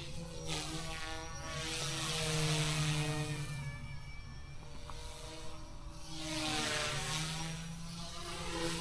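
Small electric RC helicopter in flight, the Eachine E120S: a buzzing whine from the motor and rotor that shifts in pitch and swells and fades as the throttle and manoeuvres change.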